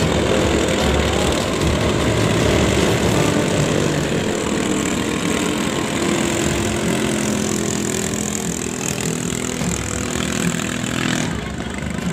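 Small single-cylinder engines of katinting longtail racing boats running flat out as the boats speed past, a continuous buzzing engine note. The sound eases off over the last few seconds as the boat moves away.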